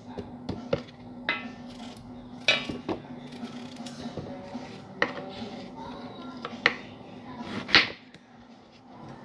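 Raw potato being sliced by hand with a small knife over a stainless steel pot: pieces dropping into the pot and the knife knocking against it make sharp irregular clicks and clinks, about seven of them, the loudest near the end.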